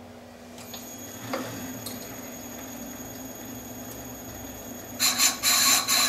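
Lathe spindle running with a steady hum and thin high whine, starting up about a second in. About five seconds in, the turning tool touches the spinning fibre-reinforced phenolic blank, giving a loud, harsh scraping cut for about a second and a half as a small witness mark is cut on its outside diameter.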